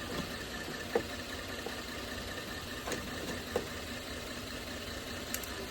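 Car engine idling steadily during a jump start, with a few light clicks and knocks over it.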